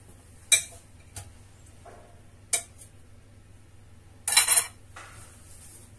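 A metal knife and utensils clinking against ceramic bowls and plates: a few single sharp clinks, then a quick cluster of clinks about four seconds in, the loudest.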